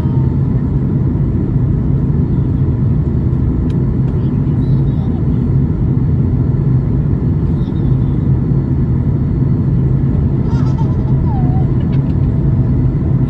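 Steady in-flight cabin roar of a Boeing 737 MAX 8, heard from a window seat: a constant rush of airflow and engine noise with a low hum. Faint voices come through about ten seconds in.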